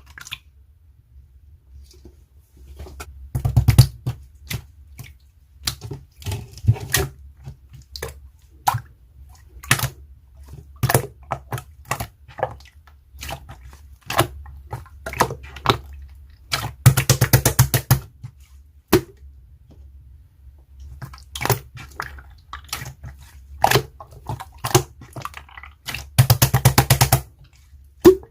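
Slime being squished and stretched by hand, giving irregular sticky clicks and pops as air pockets burst. Twice, once midway and once near the end, it breaks into about a second of rapid crackling pops.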